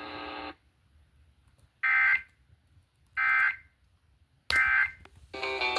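Emergency Alert System end-of-message signal over radio: three short bursts of digital data tones about 1.3 seconds apart, marking the end of the warning. A steady buzzing tone cuts off about half a second in, and music starts just before the end.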